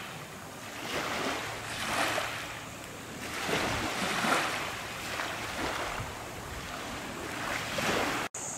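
Sea water washing and splashing in surges every second or two, with some wind; it breaks off suddenly near the end.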